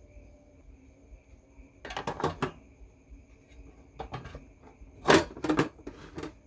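Metal amplifier case being handled and its lid fitted: two bursts of clattering clicks and knocks, about two seconds in and about five seconds in, with a few lighter taps between.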